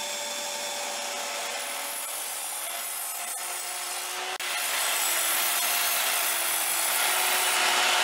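Evolution R255SMS sliding mitre saw cutting through a length of 4x2 timber: a steady motor whine over the rasp of the blade in the wood, getting louder about halfway through.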